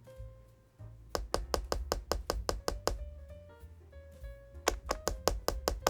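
Typing on the KiiBOOM Phantom81 Lite keyboard, a 75% board with an ABS case, a PC plate and foam-damped KiiBOOM Mochi switches: a run of quick, even keystrokes that pauses briefly and then starts again near the end. Soft background music plays underneath.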